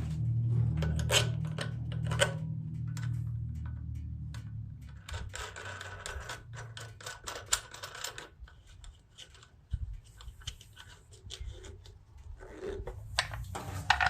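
Repeated clicks, taps and scraping of parts being handled and fitted as an air cleaner is put back on a small engine, over a low steady hum that weakens after about five seconds.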